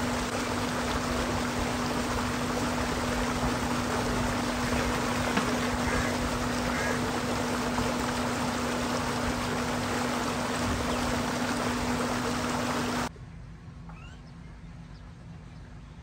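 Water gushing steadily from a pipe into a concrete tank while a steel tub of goat trotters is rinsed and tipped out under it, with a steady low hum beneath. About 13 seconds in, both stop abruptly, leaving quiet outdoor ambience.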